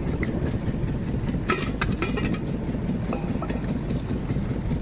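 A few light clinks of steel bowls and pots being handled, about one and a half to two and a half seconds in, over a steady low rumble.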